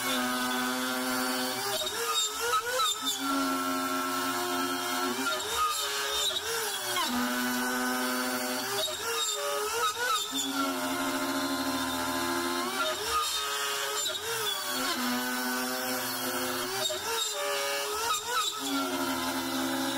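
Makita trim router on a benchtop CNC machine cutting a deep offset pocket in wood with a large roughing bit, at speed setting 5. Its pitched motor whine holds steady, then sags and recovers every second or two as the load changes. The router is bogging down: the cut is overworking the machine's rigidity and the router's power.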